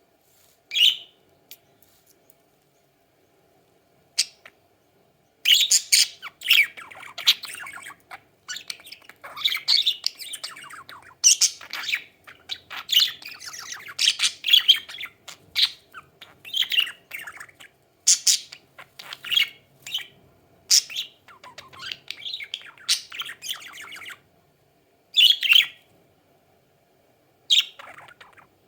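Budgies (budgerigars) chirping and chattering, with some squawks: single calls near the start, then a long stretch of quick, busy warbling, then single calls again near the end.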